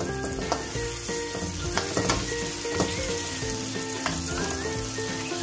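Ground chili-and-shallot spice paste sizzling in hot oil in a non-stick wok while a plastic spatula stirs it, with a few light clicks of the spatula against the pan.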